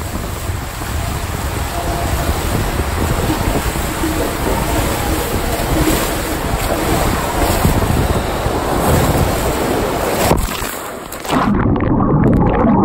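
Water rushing and a rider sliding fast down an enclosed tube water slide, heard from a phone carried by the rider, with wind and water noise on the microphone. About eleven seconds in the rider splashes into the landing pool and the sound turns muffled as the phone goes underwater.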